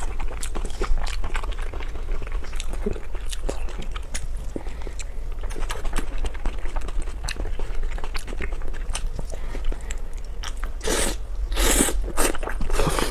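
Close-up eating sounds: chewing and biting with many small wet clicks and crunches. Two louder, longer crunching or slurping noises come near the end.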